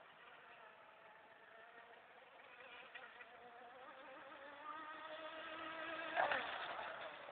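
Modified NQD Arrow Wind RC rigger boat with a 1700 kV brushless motor on 4S Li-po, running at speed out on the water. Its thin, high whine is faint at first and grows louder over the last few seconds as the boat comes closer.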